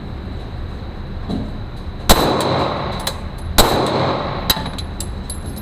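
Glock 17 pistol firing 9mm rounds: two single shots about a second and a half apart, each followed by a long echo, and a third shot right at the end.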